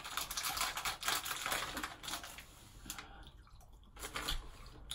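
Light rustling and clicking handling noises, dense for the first couple of seconds, then sparser, with a few sharper clicks later.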